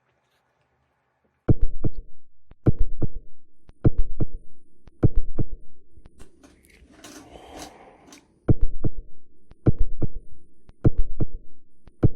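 Low double thumps in a slow, even rhythm, each pair a third of a second apart and repeating about once a second, like a heartbeat's lub-dub. Near the middle there is a softer rustling stretch with no thumps for about two seconds.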